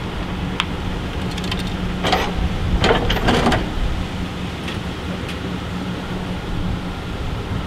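Ford Super Duty pickup truck's engine running steadily at low speed as the truck pulls into a snowplow's mount, with a cluster of metal clanks and rattles about two to three and a half seconds in as the plow frame meets the truck's mount, and a few lighter ticks before and after.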